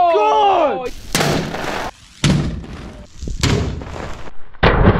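A man's excited yell, then a big plastic bag of paint bursting on impact, a heavy thud and splatter heard four times about a second apart.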